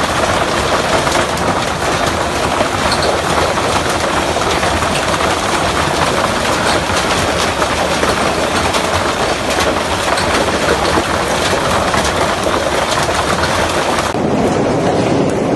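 Heavy rain mixed with hail in strong wind: a dense, steady hiss of rain with hailstones clicking against surfaces. About a second and a half before the end the hiss suddenly turns duller.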